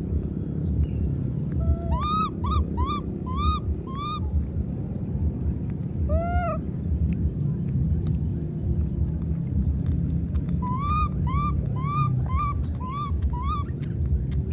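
Baby macaque giving short cooing cries that rise and fall in pitch, in runs of several at about two or three a second: one run about two seconds in, a single longer cry in the middle, and another run near the end. A low rumbling noise runs underneath.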